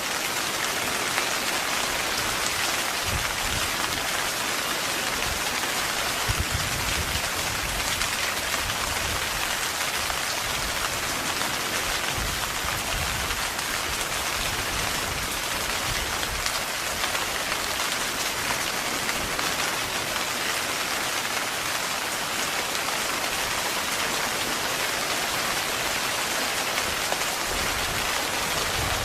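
Heavy rain falling steadily on a tent, a dense, even patter of drops.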